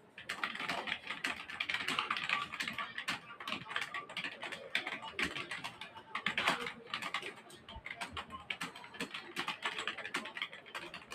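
Fast, continuous typing on a computer keyboard: a dense, unbroken clatter of keystrokes, several a second, as in a speed-typing test.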